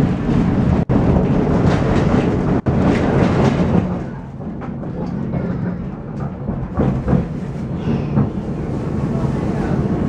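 Tram running along street track, heard from inside the passenger car: a steady rumble of wheels on rail with a low hum. It is louder for the first four seconds, then settles a little quieter, and the sound drops out for an instant three times early on.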